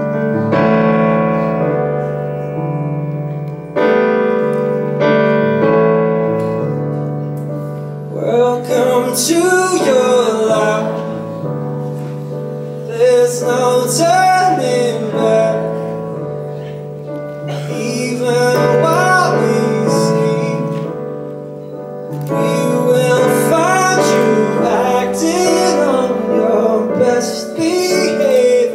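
Live piano playing sustained chords, with singing voices coming in about eight seconds in and continuing in phrases over the piano.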